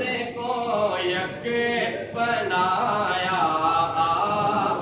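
A man singing a naat without accompaniment, in long held notes that bend and ornament the melody, broken by short pauses between phrases.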